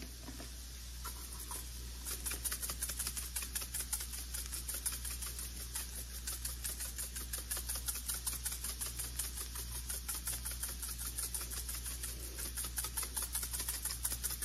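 Crushed red pepper flakes being shaken out of a spice shaker into a pan of ground beef: a rapid, even rattle of several shakes a second, starting about two seconds in.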